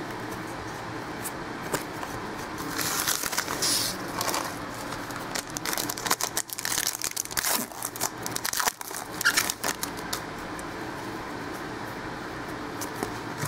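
Foil wrapper of a football card pack being torn open and crinkled, with the cards inside rustling as they are handled and flicked through, in irregular bursts of crinkling from a few seconds in until about two-thirds of the way through.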